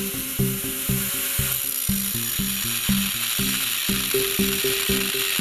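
Electric angle grinder with a cut-off wheel cutting through steel bar stock: a steady high grinding hiss from the wheel biting the metal. Under it runs a rhythmic low pitched pulsing, about four pulses a second.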